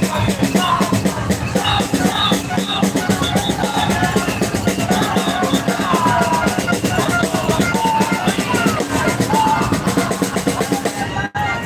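Drums beating a fast, continuous rhythm among a marching crowd, with bass and snare drums, and scattered voices above.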